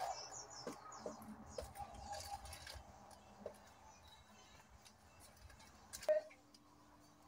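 Light rustling and crinkling of a plastic zip bag and dry moss substrate being handled, with scattered small clicks and one sharper crinkle about six seconds in.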